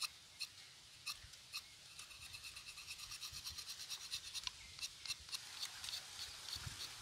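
A small sickle-shaped knife scraping and shaving the bark off a thin curry-leaf twig. It starts with a few spaced strokes, then runs into quicker short strokes at about five a second.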